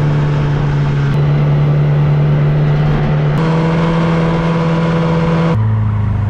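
Snowmobile engine running at speed, a steady drone; its pitch steps up a little past halfway and drops lower near the end.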